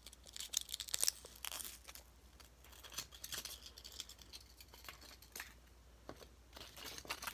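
Faint handling noise: irregular small clicks and rustles from hands moving a moth cocoon and the camera, bunched in the first couple of seconds, again around three seconds in, and near the end.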